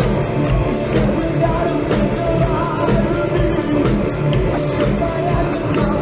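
Live hard rock band playing: electric guitars, bass and drums, with the lead singer's voice over them.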